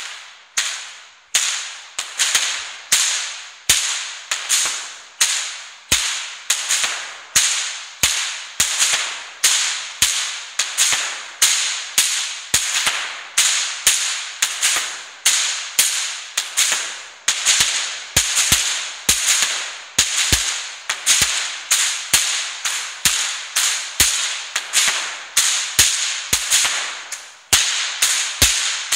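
Goaßl whip cracking in a steady rhythm: sharp cracks about one and a half a second, each with a short ringing tail.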